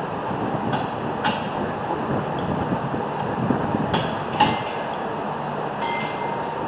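Metal hand tools and brake parts clicking and clinking, with a handful of irregular light taps and a short metallic ring near the end, over a steady background hiss.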